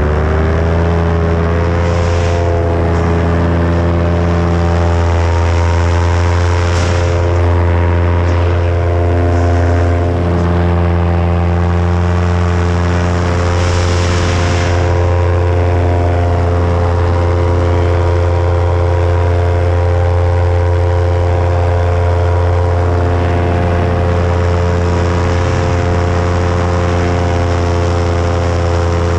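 Paramotor engine and propeller running steadily at constant power, its pitch rising slightly in the first second and then holding. A few brief bursts of hiss come over it.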